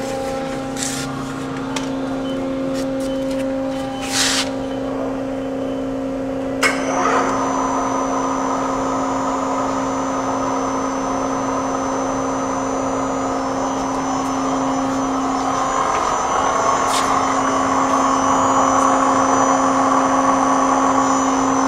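Steady mechanical hum of shop machinery, with a few clicks and a knock in the first five seconds. About seven seconds in, a louder rushing noise with a thin high whine starts abruptly and keeps going, like a motor or blower coming on.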